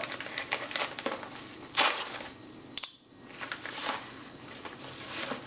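Padded paper mailer being torn open and crinkled by hand, in a run of short rips and rustles, the loudest about two and three seconds in.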